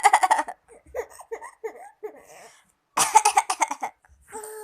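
A person coughing in harsh, rapid fits, one at the start and another about three seconds in, with someone giggling in short bursts between them.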